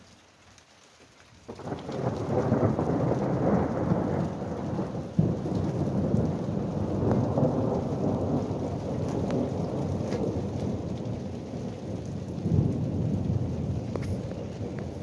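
Thunder: a sudden loud clap about one and a half seconds in, rolling on as a long rumble that slowly eases, with a sharp crack about five seconds in. Rain falls underneath.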